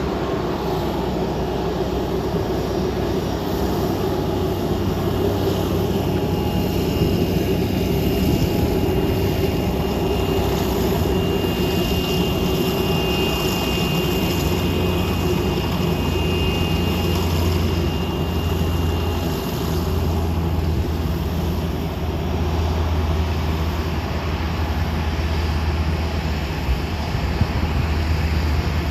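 Embraer ERJ-145 regional jet taxiing, its two rear-mounted Rolls-Royce AE 3007 turbofans at low taxi thrust: a steady hum with a thin high whine that rises out of it in the middle and fades again.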